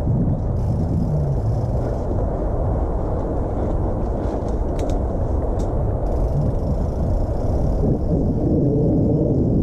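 2017 Specialized Stumpjumper mountain bike ridden over a dirt singletrack: steady low rumble of the tyres and frame on the rough ground mixed with wind buffeting the camera microphone, with a few sharp clicks about halfway through.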